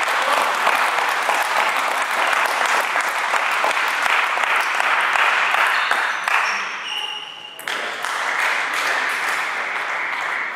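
Spectators applauding a won point in a table tennis match. The clapping dips briefly about three quarters of the way through, then picks up again.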